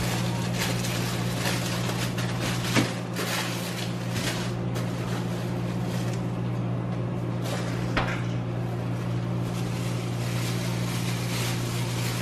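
Cabbage rolls simmering in tomato sauce in a covered skillet: a fine, continual bubbling crackle over a steady low hum, with two sharper clicks about three and eight seconds in.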